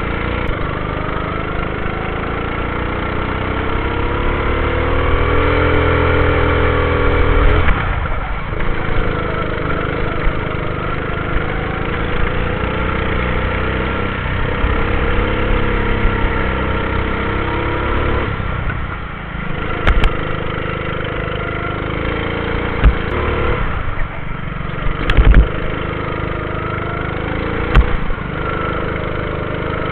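Go-kart engine running hard, its pitch climbing as the kart speeds up and dropping sharply when the throttle is lifted, several times over. Several short sharp knocks in the second half.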